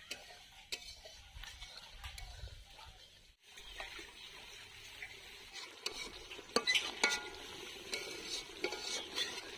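Flat metal spatula scraping and stirring a thick vegetable curry (amaranth-stem chorchori) in a large metal wok, repeated clinks and scrapes against the pan. The curry sizzles as it cooks down, and the scraping is sharpest in the second half.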